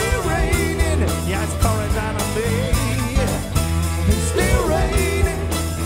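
Live rock band playing: a sung lead vocal over electric guitars, bass and a drum kit with a steady beat.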